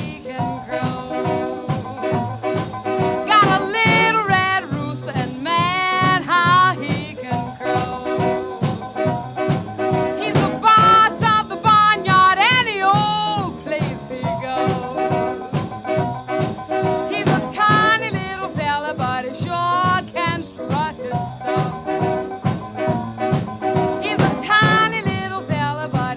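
Jump blues band recording with brass, trombone among them, playing over a steady swing beat, with a lead melody that slides and bends in pitch in phrases.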